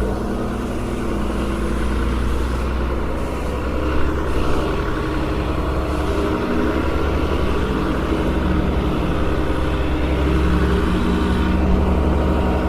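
Tow truck's heavy engine running with a low, steady rumble, its pitch shifting a little over time. Two brief knocks sound about four seconds in.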